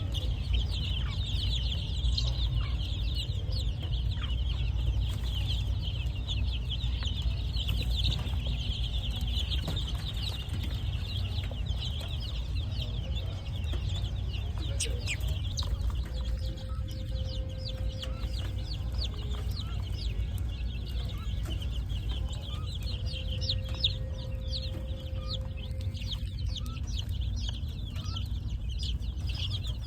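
A group of baby chicks peeping continuously in quick, high cheeps, busiest in the first half, over a steady low hum.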